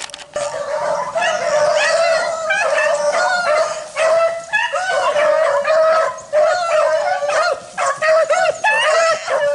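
A pack of beagles baying on a rabbit's trail, many voices overlapping and growing loud within the first second as the dogs close in. They are running the fresh track of a rabbit that has just passed.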